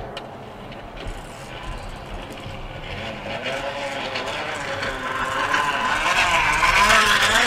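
Engine-like buzzing from the homemade 'motor' fitted under the BMX bike's wheel as the bike is ridden. The pitch wavers up and down, and the buzz grows louder over the last few seconds.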